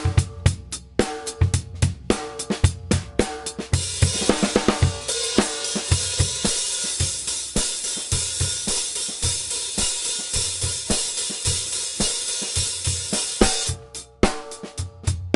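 Drum kit playing a steady beat on bass drum, snare and hi-hat. About four seconds in, the hi-hat becomes too loud, a bright continuous wash that covers the bass drum and snare, an example of a beat out of balance; near the end the separate strokes stand out again.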